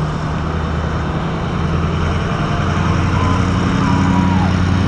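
Motorcycle engine idling steadily, its note stepping up slightly about three seconds in.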